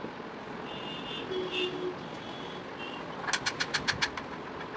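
A fast run of sharp taps or knocks, about six in a second, starting about three seconds in, over a faint steady background hiss; earlier, faint short high tones sound briefly.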